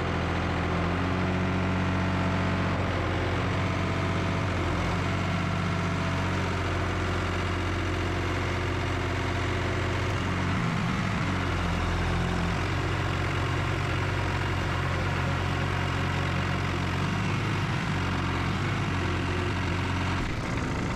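Compact loader tractor's engine running steadily while the tractor drives, the low engine note shifting briefly about halfway through.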